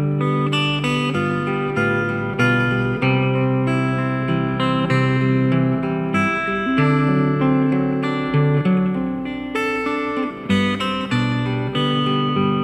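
Acoustic guitar playing a plucked and strummed accompaniment, with a steady run of notes over sustained low notes.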